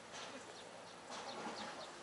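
A few faint, short, high bird chirps over quiet outdoor background noise.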